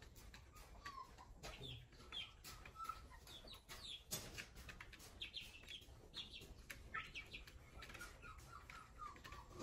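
Young chickens giving a steady run of faint, short peeping calls while pecking at the plastic feed and water trays, with scattered faint clicks of beaks on the trays.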